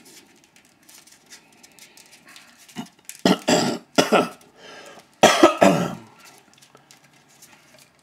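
A person coughing: a run of harsh, loud coughs about three seconds in, another about a second later, and a final double cough around five seconds in.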